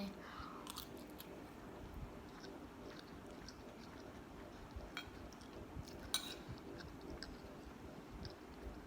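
A person chewing a mouthful of fried rice, quietly, with scattered faint clicks and one sharper click about six seconds in.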